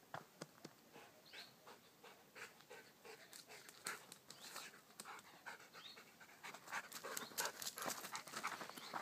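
A dog panting as it trots along a dirt trail, with footsteps on gravelly ground. The panting grows louder near the end as the dog comes close.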